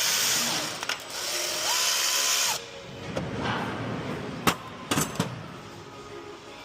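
A handheld power tool running to undo the nut on the alternator's battery positive terminal; its motor pitch steps up about two seconds in, and it stops suddenly. A few sharp metallic clicks follow.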